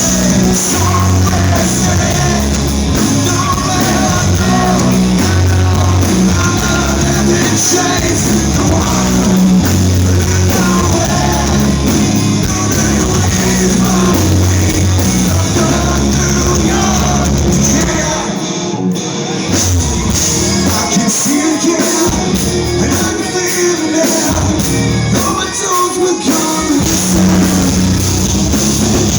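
A live band playing loud, with singing. The deep bass thins out briefly about two-thirds of the way through.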